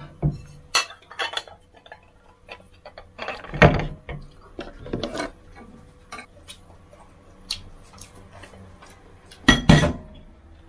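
Ceramic rice bowl and metal spoon clinking and knocking against a china plate as fried rice is packed into the bowl and turned out onto the plate. Scattered clinks throughout, with a loud knock about three and a half seconds in and two more close together near the end.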